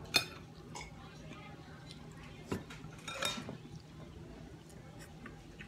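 Spoon and fork clinking against a plate and a glass bowl while eating. There is a sharp, ringing clink just after the start, a duller knock about two and a half seconds in, and another ringing clink soon after.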